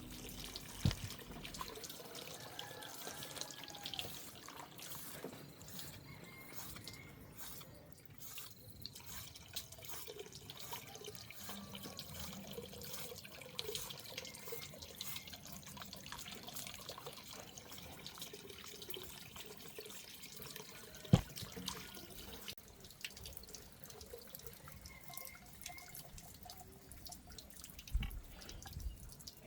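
Water running and dripping with small splashes and clicks, like hands washing something under a tap or in a basin. One sharp knock about two-thirds of the way in.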